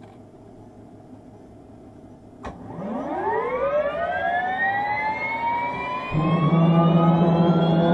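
Bell 206 helicopter's Allison 250 turbine engine starting: a click about two and a half seconds in, then a whine that climbs steadily in pitch as the starter spins the turbine up. About six seconds in, a lower steady hum joins and the sound grows louder.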